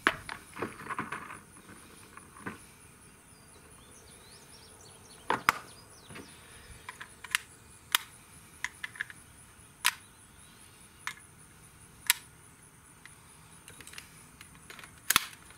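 300 Blackout cartridges being pressed one at a time into an AR-style rifle magazine: about a dozen sharp metal clicks, a second or two apart, with louder clacks about five seconds in and near the end.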